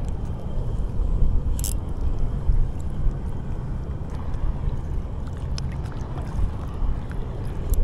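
Low, fluctuating rumble of wind and water at the sea's edge, with one sharp click about two seconds in.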